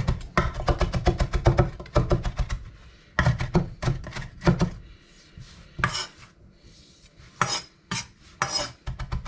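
Zwilling chef's knife chopping fresh greens on a cutting board: fast, even runs of knocks, several a second, in the first half with a short pause between them, then a few slower, separate strokes with more hiss in the second half.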